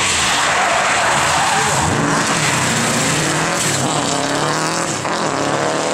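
Rally car driving hard on a stage, its engine revs rising and falling over a loud rushing noise.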